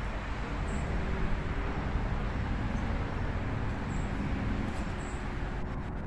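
Steady low rumble of distant road traffic, with a few faint high chirps.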